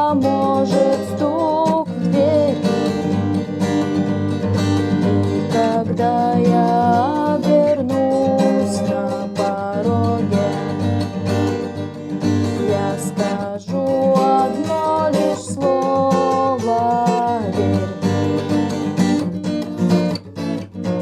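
Acoustic guitar strumming chords steadily, with a melody line that bends in pitch here and there.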